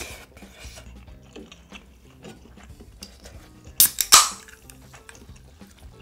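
A drink can's pull tab cracked open: a sharp snap and a second crack with a short fizzing hiss, about four seconds in, over quiet background music and small clinks of tableware.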